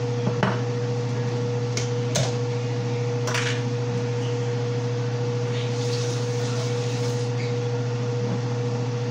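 A steady low hum with a constant higher tone under it, like a running kitchen appliance or fan, with a few light clinks of dishes and a plate being handled in the first few seconds.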